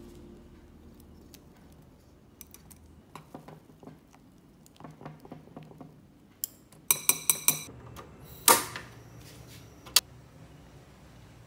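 Chopsticks beating egg in a ceramic bowl, with light scattered clicks. About seven seconds in comes a quick run of five ringing knocks, then a single louder clank about a second later.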